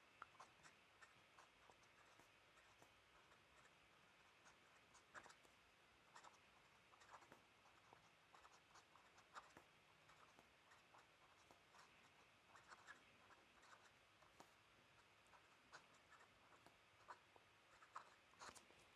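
Faint scratching of a fountain pen's metal nib on paper as words are handwritten, in short irregular strokes.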